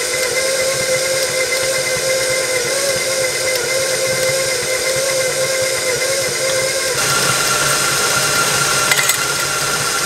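Electric bowl-lift stand mixer running, beating buttercream frosting in its steel bowl: a steady motor whine with hiss. The whine shifts to a higher pitch about seven seconds in.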